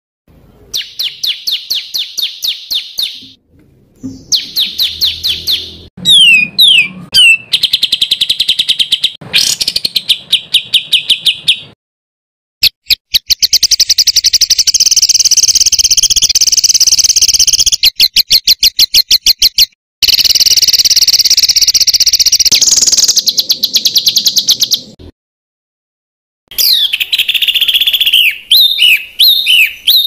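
Songbird song made of dense, fast-repeated trills and harsh chattering phrases. Each phrase runs a few seconds and starts and stops abruptly, with brief gaps between, as in a spliced masteran training track of 'rapid and harsh' song bursts. Near the end come quick downward-sliding notes.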